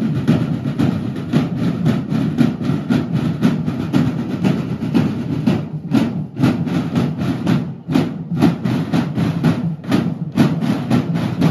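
Marching band of snare drums playing a fast, steady march beat together, with a couple of brief breaks between phrases.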